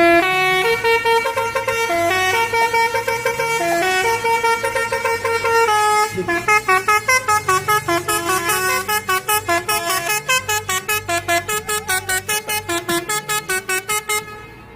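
Truck's basuri telolet multi-tone horn playing a tune: longer held notes stepping up and down at first, then from about six seconds in a fast run of short repeated notes, about five a second, stopping suddenly near the end.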